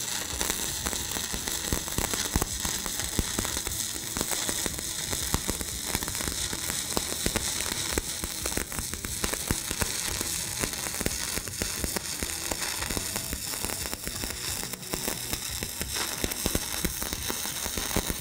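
Stick (shielded metal arc) welding arc burning a 7018 electrode across a steel plate: a steady, even crackle and sizzle full of tiny pops, from a rod held at a short arc length.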